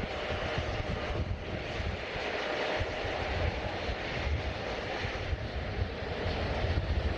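Jet airliner engines running, a steady noise with a heavy low rumble and a faint whine on top.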